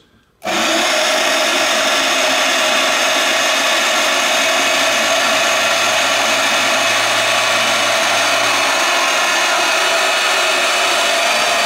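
Harbor Freight 10-amp variable-speed portable band saw switched on about half a second in and running steadily on speed 3, its 14 TPI wood blade cutting through a 2x4, with a steady whine over the sawing noise.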